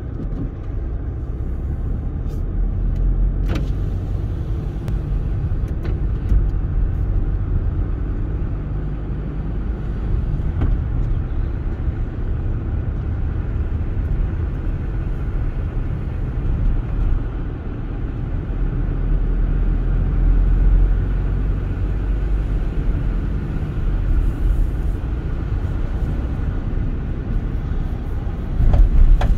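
A car driving along a road: steady low engine and tyre rumble, with a couple of faint clicks and a louder swell near the end.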